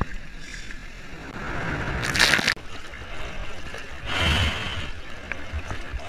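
Seawater sloshing and splashing right at the camera at water level. A louder rush of water builds about two seconds in and cuts off abruptly, and a paddling splash comes about four seconds in.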